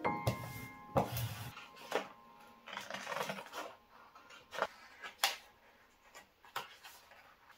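Vinyl decal sheets on transfer tape being handled and cut apart with scissors: rustling and crinkling of the sheets, a short rubbing scrape, and several sharp clicks.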